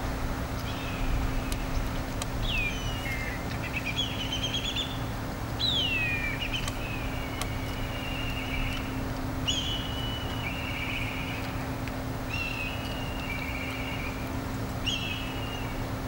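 Black kite calling several times, each call a whistle sliding down in pitch that runs into a quavering trill. A steady low hum runs underneath.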